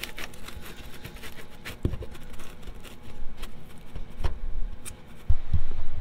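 Handling noise: scattered light clicks and knocks of hands at work, with heavier low thumps in the last second.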